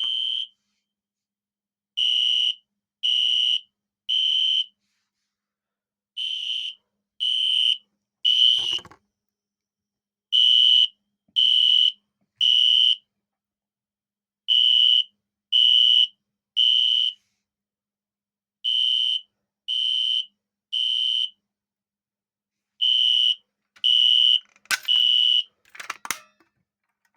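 System Sensor SpectrAlert Classic P1215W fire alarm horn, run on about 12 volts, sounding the temporal-three evacuation pattern: groups of three short, high-pitched horn beeps, repeating about every four seconds. There is a click about nine seconds in, and some clattering near the end.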